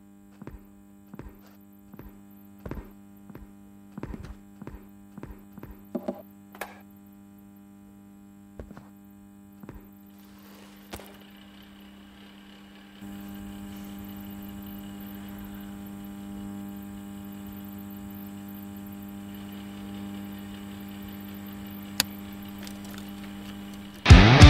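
Steady low electrical mains hum with scattered light clicks and taps through the first half. About halfway through the hum and hiss step up, a single sharp click comes near the end, and loud rock music with guitars starts just before the end.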